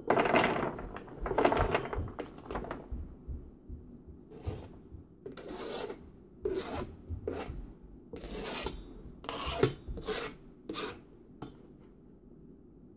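Wooden spatula scraping chopped vegetables off a cutting board into a metal mixing bowl: a series of rasping scrape strokes, the loudest in the first two seconds, dying away about eleven seconds in.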